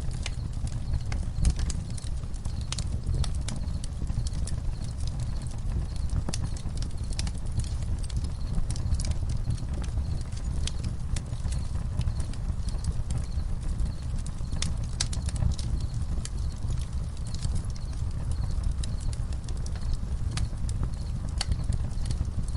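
Campfire crackling, with many irregular sharp pops and snaps over a steady low rumble. Crickets chirp faintly behind it.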